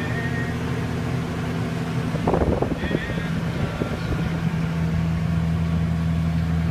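McCormick MTX tractor's diesel engine running steadily under load as it pulls a peanut picker, heard from inside the cab. A short burst of rattling noise breaks in a couple of seconds in.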